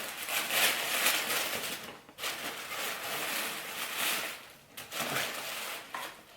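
Paper and packaging rustling and crinkling as a gift is unwrapped, in several spells with short pauses between them.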